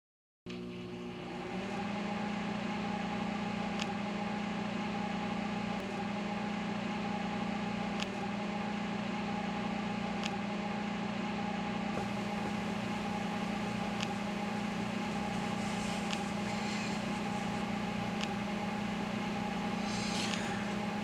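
Microwave oven running with a steady hum that starts abruptly, with faint ticks every couple of seconds.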